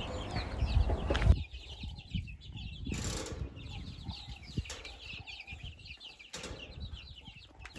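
A flock of young chicks cheeping: many short, high peeps overlapping. There is a brief rustle about three seconds in.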